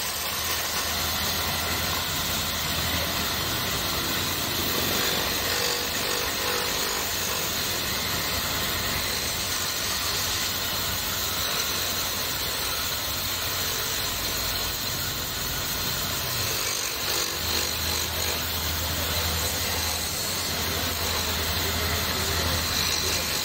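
Wood lathe running steadily with a low motor hum while a hand-held turning chisel cuts grooves into a spinning wooden cylinder, giving a continuous scraping hiss of wood being shaved.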